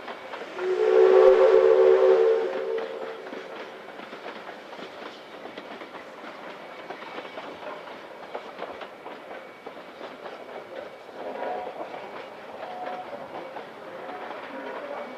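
Steam locomotive whistle sounding once for about two seconds, a chord of several tones, then the steady rattle and clickety-clack of the train running on the rails.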